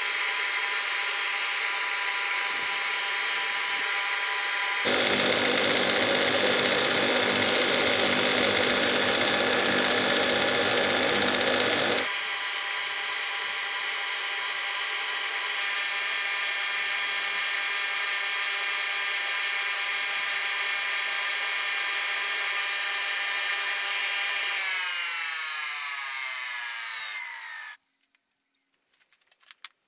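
Electric power tool motor running at a steady whine. For several seconds it carries a heavier, rougher sound, as of work pressed against it. Near the end it is switched off and its pitch falls as it spins down to a stop.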